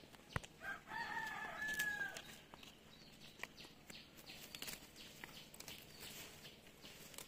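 A rooster crows once, faintly, a single drawn-out call lasting just over a second, starting about a second in; a sharp tap comes just before it.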